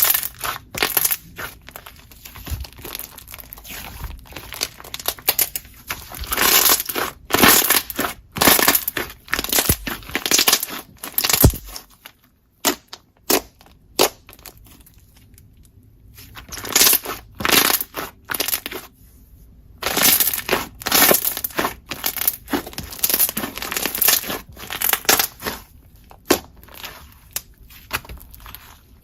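Slime being squeezed, pressed and stretched by hand, giving dense irregular crunchy crackles and pops, with a few quieter pauses between handfuls.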